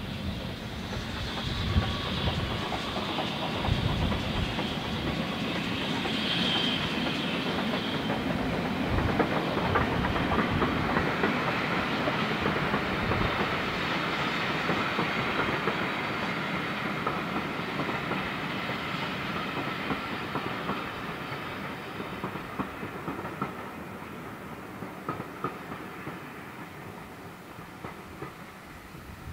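GWR Modified Hall steam locomotive No. 6989 'Wightwick Hall' passing at work, with steam and smoke at the chimney, followed by its rake of coaches running over the track. The sound is loudest around the middle and fades away over the last several seconds as the train moves off.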